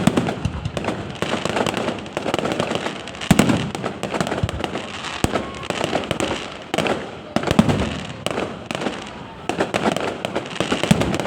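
Fireworks display: continuous dense crackling, with heavier bangs every couple of seconds.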